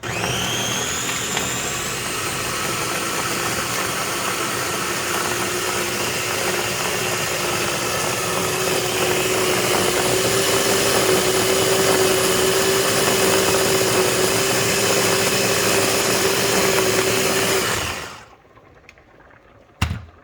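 Electric blender running on a batch of pesto (basil, Parmesan, olive oil). The motor whines up to speed at the start, runs steadily, gets a little louder about halfway through, and cuts off with a brief spin-down near the end.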